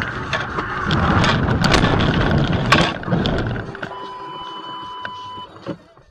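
A car running off the road and ploughing into roadside brush: a rush of knocks, scrapes and rattling thuds for about three seconds, loudest near the start and end of that stretch. Then a steady electronic beep holds for about a second and a half.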